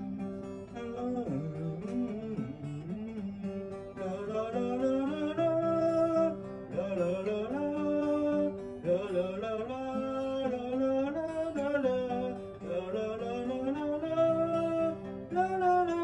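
Acoustic guitar music with a man singing a melody over it.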